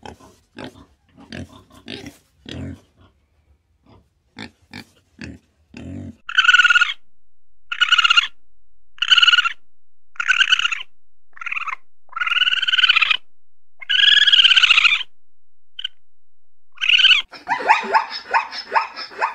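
Pig grunting in short bursts for the first six seconds or so, then a run of about eight high-pitched drawn-out calls, each under a second long, and a rapid jumble of calls near the end.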